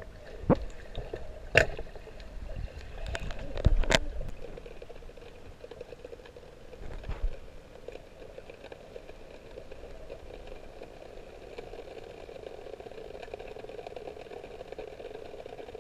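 Muffled underwater sound of a swimming pool heard through a submerged camera: a few sharp knocks and sloshing from a swimmer moving off in the first four seconds, then a steady, even underwater hum.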